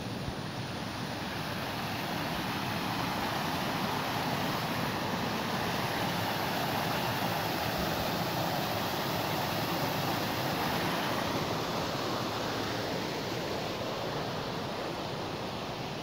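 Water rushing steadily over small cascades and rapids in a river, growing louder through the middle and easing off near the end.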